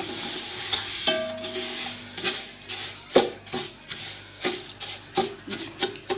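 Spatula scraping and stirring sugar in hot oil in a steel pot, about two strokes a second, with a light hiss in the first couple of seconds as the sugar is roasted.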